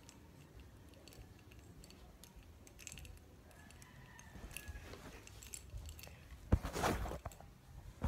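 Handling noise of a phone held close to the microphone: faint scattered clicks and rustles. About four and a half seconds in these grow louder, with a sharp knock and a burst of rustling about six and a half seconds in.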